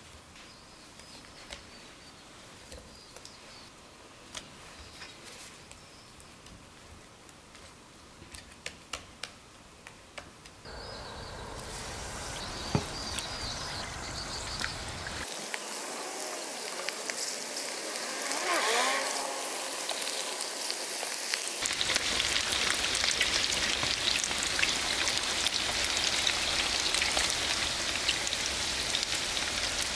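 Battered squid rings deep-frying in hot oil in a cast-iron cauldron: a steady sizzle with many fine crackles, loudest over the last third. Before that, a quiet stretch of gloved hands dredging squid in flour, with a few soft clicks.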